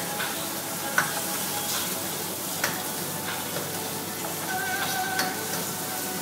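Pad thai stir-frying in a wok over a high gas flame: steady sizzling as the food is tossed and stirred, with sharp metal knocks against the wok about one second and two and a half seconds in.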